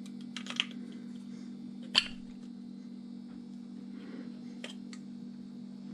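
Small clicks of pliers and plastic parts being handled while a garden hose nozzle is taken apart, with one sharper click about two seconds in, over a steady low hum.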